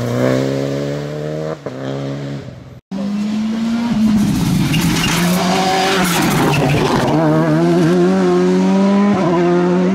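Rally car engines at full throttle. One car's engine pulls up through the revs, it cuts off abruptly, and then a second car's engine revs hard with its pitch rising and falling.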